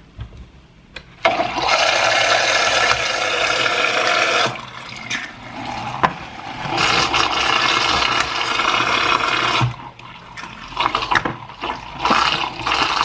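Electric vortex mixer bottle whirling raw egg whites and two whole eggs, in three runs of about three seconds each with short pauses between: an even, churning liquid whoosh.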